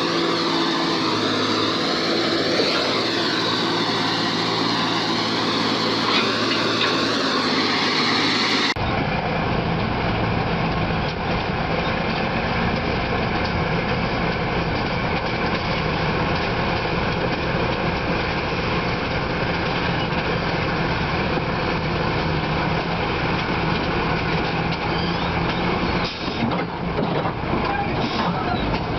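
Heavy vehicle and machinery engines running, a steady mechanical noise that changes abruptly about nine seconds in and again near the end.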